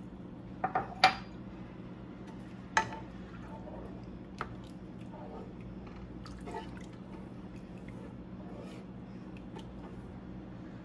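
Wooden slotted spatula stirring corned beef in water in a square Copper Chef pan: liquid sloshing and squishing, with a few sharp taps of the wood against the pan in the first four or five seconds.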